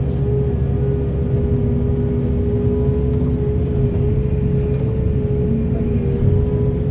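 Heavy excavator's diesel engine and hydraulics running steadily under load, with a constant high whine over a deep rumble and short hissing spurts every second or so.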